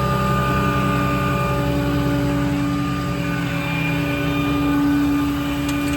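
Steady mechanical drone with a constant whine from the truck's 6.7 Cummins diesel running with its hydraulically driven air compressor engaged.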